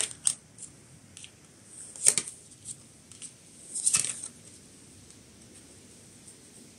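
Tarot cards being drawn and laid down on a cloth-covered table: a few short slaps and swishes, the loudest about two seconds in and about four seconds in.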